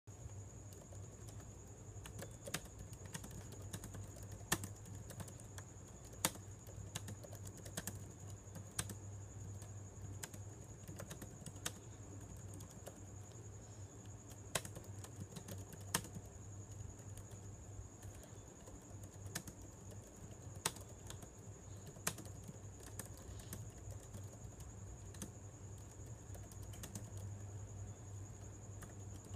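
Typing on a computer keyboard: irregular keystroke clicks at a slow, uneven pace, a few noticeably louder strokes standing out. A faint steady high whine and low hum sit underneath.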